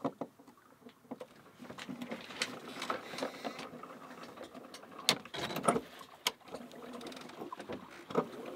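Jib sheets being hauled and eased on a sailing yacht: rope running through blocks with a busy run of clicks, knocks and rattles of deck gear, loudest a little past the middle.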